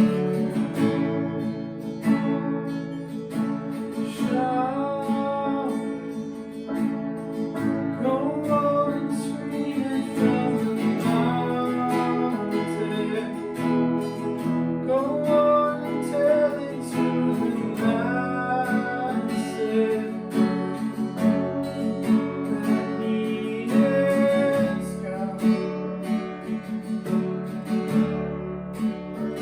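Acoustic guitar strumming chords under a voice singing a slow melody: a worship song.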